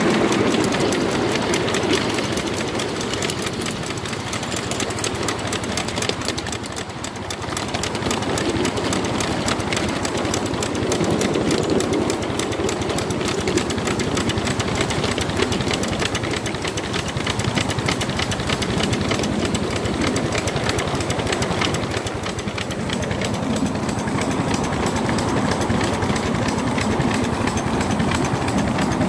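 Miniature 7¼-inch gauge steam locomotive running along the track with the driver aboard: a fast, even beat of exhaust and wheels on rail, easing slightly about seven seconds in.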